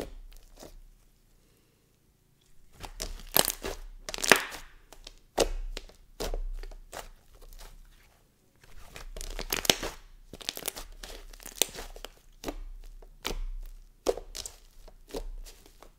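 Soft, whipped slime being stretched, folded and squeezed by hand, giving off clusters of sticky popping and crackling as small air pockets burst. It starts about two and a half seconds in and comes in repeated bursts.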